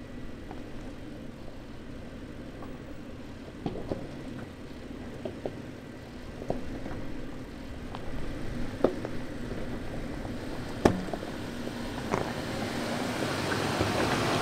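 Range Rover crawling down a rocky trail, its engine running low while its all-terrain tyres crunch over loose stone, with sharp cracks and knocks of rocks shifting under the wheels every second or so. The sound grows louder near the end as the vehicle comes close.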